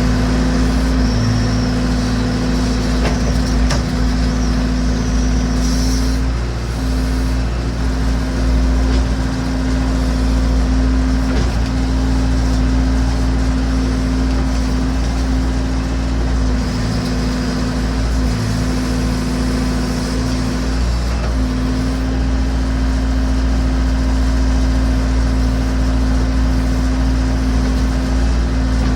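Massey Ferguson BX 50 backhoe's engine running steadily with a strong, even hum. It wavers briefly about six seconds in and again around eighteen seconds in.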